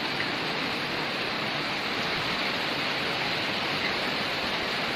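Steady, even rushing of water: floodwater flowing and rain falling.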